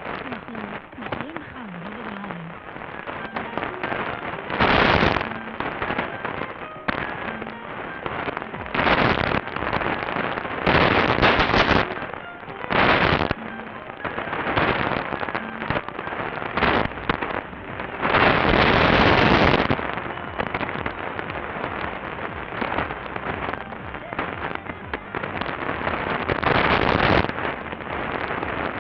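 Mediumwave AM radio reception of a weak distant station on a TEF6686 receiver, swamped by heavy thunderstorm static. A constant crackle runs throughout, with loud crashes of lightning static every few seconds; the longest lasts about two seconds, about two-thirds of the way through. The station's programme audio is faint underneath.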